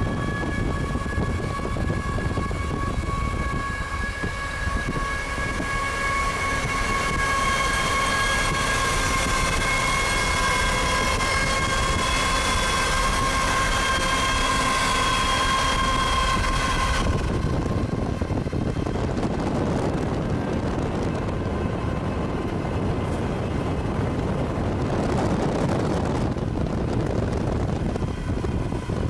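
Locomotive horn sounding one long multi-note chord over the rumble of a passing train. The horn cuts off suddenly about seventeen seconds in, and the train's rumble and rail noise carry on.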